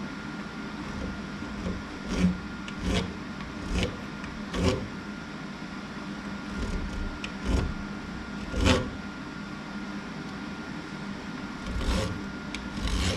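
Hand file scraping across the edge of an aluminum aircraft spar clamped in a bench vise, filing off a leftover trimming nub: about eight separate strokes at uneven spacing. A steady hum runs underneath.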